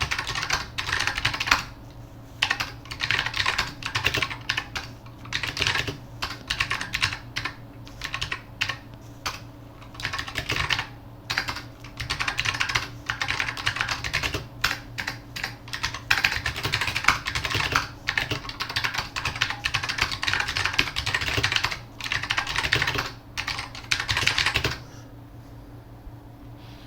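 Fast typing on a mechanical keyboard with clicky Matias Click switches, in runs of rapid key clicks broken by short pauses. The typing stops about two seconds before the end, leaving only a faint steady low hum.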